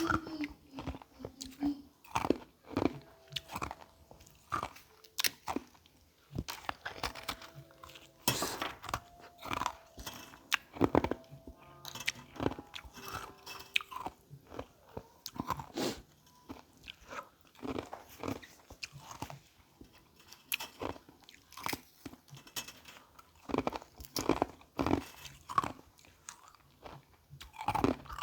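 Close-miked biting and chewing of carbonated ice (frozen sparkling water): many irregular sharp crunches, some in quick clusters.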